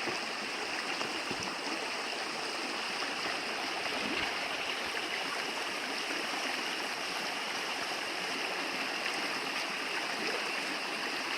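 A stream running steadily, an even rushing of water with no pauses.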